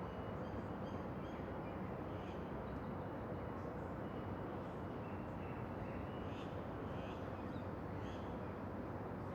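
Distant city ambience near a train station: a steady low rumble of traffic and rail, with scattered short high calls over it.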